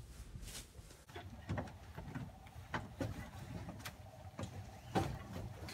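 Irregular knocks and thumps over a low rumble: large cardboard shipping boxes being handled and wheeled on a hand truck.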